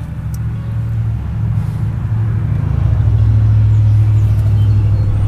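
Low, steady engine drone, growing louder over the first three seconds and then holding.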